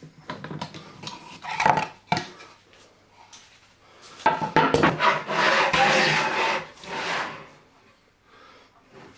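Wooden boards being handled on a workbench: a few short knocks and clicks, then a longer scraping rub of wood on wood a little over four seconds in that lasts about three seconds.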